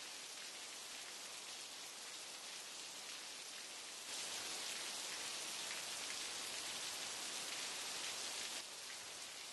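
Faint, steady rain-like hiss with no distinct events, a little louder from about four seconds in until about eight and a half seconds in.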